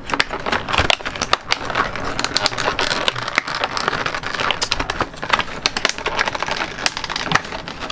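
Clear rigid plastic clamshell packaging being handled and flexed, giving a dense, irregular run of crackles and clicks.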